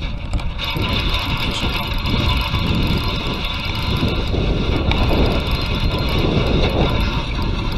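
Spinning reel cranked steadily as a lure is retrieved, its gear whir starting about half a second in, with wind rumbling on the microphone.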